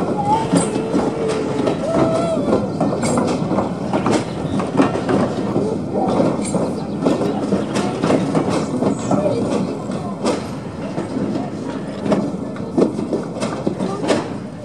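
British Railways Mark 1 passenger coaches rolling slowly past, their wheels clattering in a dense run of clicks over rail joints and points.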